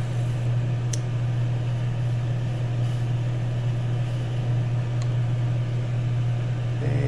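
Steady low motor hum with an even hiss from a running fan, with a short click about a second in.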